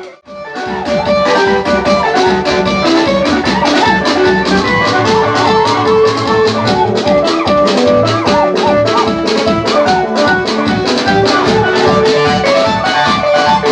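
Music with guitar and a steady drum beat. It drops out for a moment at the very start, then comes back in at full level.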